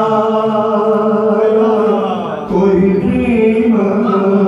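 A man's solo voice chanting a line of an Urdu devotional poem in a slow melodic style, unaccompanied: one long held note for about two seconds, a brief drop, then a new phrase with a wavering pitch.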